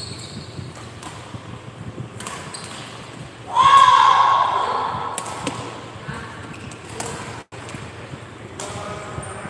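Badminton rally sounds: scattered racket-on-shuttlecock hits and footwork on the court. A loud shout about three and a half seconds in, held and then trailing down in pitch, fades over a couple of seconds.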